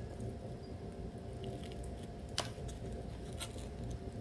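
A taiyaki pulled apart by hand: small crackles of its crisp crust tearing around the red bean paste, with a sharp crack about two and a half seconds in and a few more about a second later, over a steady low room hum.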